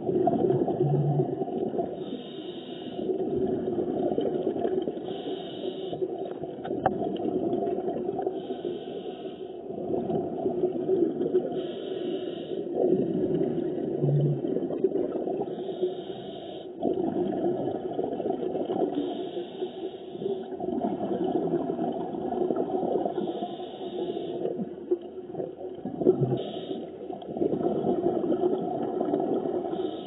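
A scuba diver breathing through a regulator underwater: a bubbling rumble of exhaled air, broken about every three to four seconds by a short hiss of inhalation.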